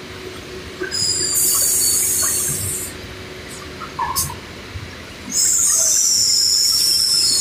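A printing machine running with a faint steady hum. Twice it gives a loud, high-pitched hissing squeal, about a second and a half long, then about two seconds, with a wavering whine on top. A few light knocks fall between them.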